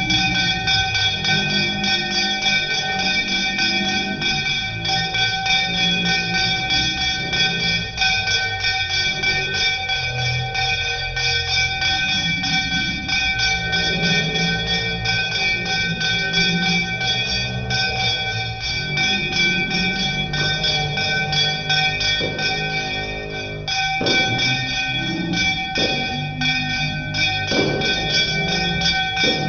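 Puja bell rung rapidly without a break: one steady ringing tone with fast, dense strikes.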